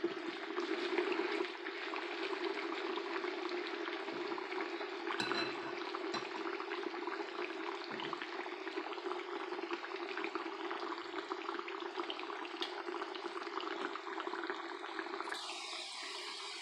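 Potato fries deep-frying in hot oil in a pan: a steady sizzle of many fine crackles and pops, over a steady low hum.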